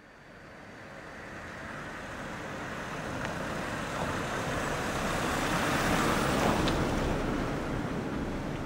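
Road traffic noise that fades in from silence and swells steadily to a peak about six seconds in, then eases off a little.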